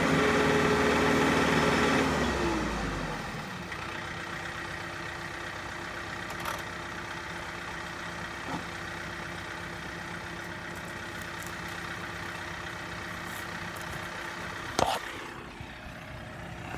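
John Deere 4066R compact tractor's three-cylinder diesel engine running at raised speed for about two seconds, then slowing down to a steady idle. A single short knock near the end.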